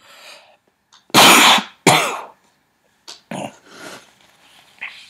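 A person sneezing: two loud, explosive bursts about a second in, a little over half a second apart, followed by a few fainter short sounds.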